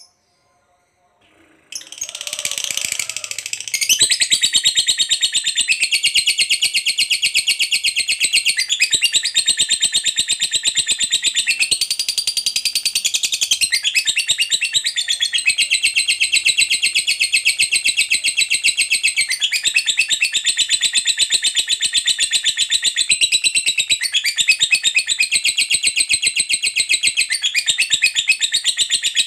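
Lovebird singing a long, unbroken ngekek: a rapid, high-pitched chattering trill that starts about two seconds in and carries on without a break, shifting pitch every few seconds. This long ngekek is the song prized in a fighter lovebird.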